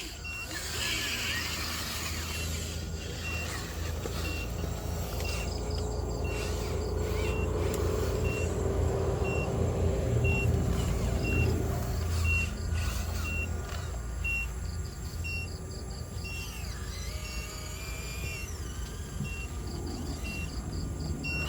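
RC dump truck's reversing beeper sounding an even, high beep a little faster than once a second over the steady hum of its drive motor, with a rising motor whine near the end.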